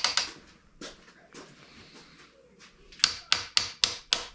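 Socket ratchet wrench clicking as it is swung back and forth on tight engine-block bolts: a fast run of clicks that stops just after the start, a single click, then a slower run of sharp clicks, about four a second, from about three seconds in.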